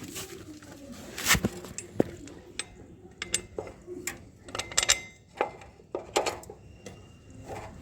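Irregular clinks and knocks of metal tools and motorcycle brake parts being handled, some with a short metallic ring.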